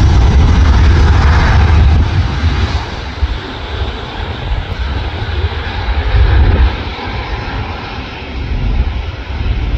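Twin turbofan engines of an Embraer E-Jet regional airliner at takeoff power during its takeoff roll. A loud, steady rush with deep rumble that is strongest for the first couple of seconds as the jet passes, then eases off as it moves away down the runway.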